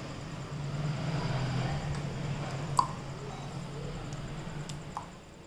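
A metal spoon spreads thick sauce over a semolina pizza base in a non-stick frying pan: soft scraping and smearing, with a sharp tap of the spoon about three seconds in and a lighter one near the end. A steady low hum runs underneath.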